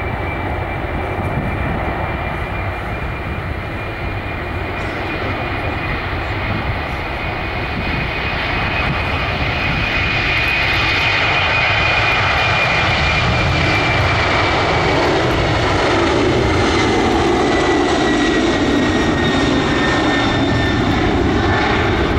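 Boeing 747-400 jet engines at takeoff thrust through the takeoff roll, lift-off and climb-out: a steady roar with a high whine. It grows louder from about eight seconds in as the jet lifts off and passes, and the whine drops slightly in pitch in the second half.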